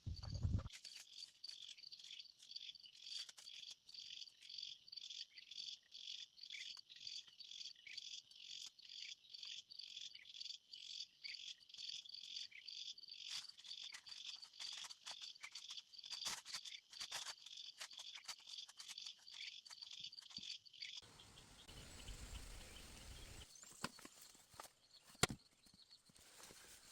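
An insect calling in a steady rhythm of short, high chirps, about two to three a second. A little after 20 seconds it gives way to a faint hiss with a low rumble and one sharp knock.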